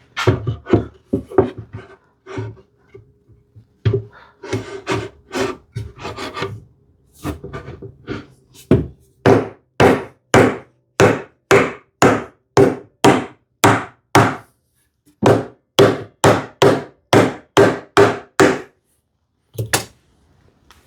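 A hand tool worked back and forth on wood in short, even strokes, about two a second, with a brief pause midway.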